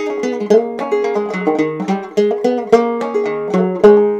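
Nylon-strung banjo picked in a quick run of single notes, with no singing. The loudest note comes near the end and is left to ring and fade.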